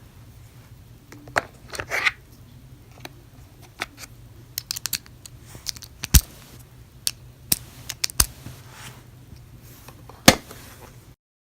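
Irregular sharp clicks, taps and a few short scrapes of small hard objects being handled, over a steady low hum; the sound cuts off abruptly near the end.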